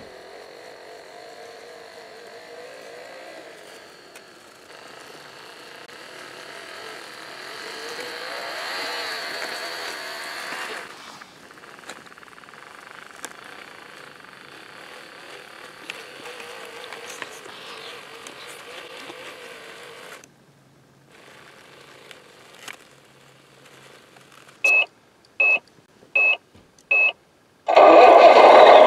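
Electric motors and gears of radio-controlled model vehicles whining and wavering in pitch, swelling in the middle, then four short high beeps evenly spaced near the end, followed by a sudden louder motor sound.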